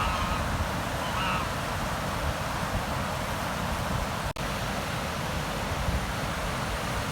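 Steady rushing of flowing river water, with a goose honking briefly about a second in. The sound cuts out for an instant a little past four seconds.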